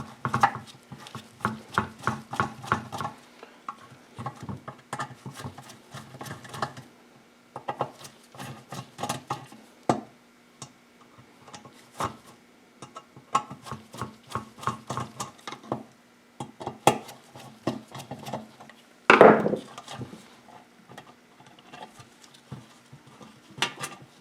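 Irregular small metal clicks, clinks and taps of hand tools and parts being handled while a lawn mower's carburetor is taken off, with one louder scrape or clunk about three quarters of the way through.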